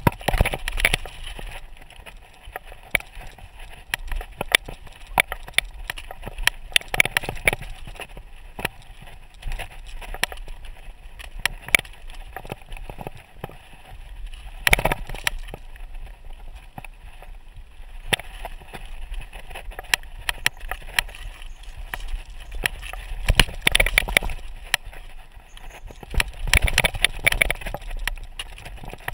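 Mountain bike rattling and clattering down a rocky, gravelly trail: tyres crunching over loose stone, with irregular knocks and rattles from the bike. There is a hard jolt about fifteen seconds in, and the clatter thickens near the end.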